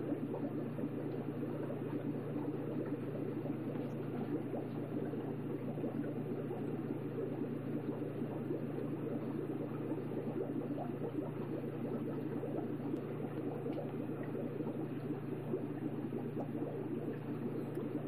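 Steady bubbling and trickling of aquarium water, with a fine crackle of small bubbles over a constant low hum.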